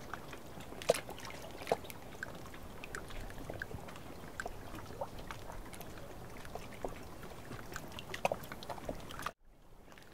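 Small splashes, drips and plops of water around a small wooden fishing boat being moved, over a steady hiss. The sound drops away suddenly for a moment near the end.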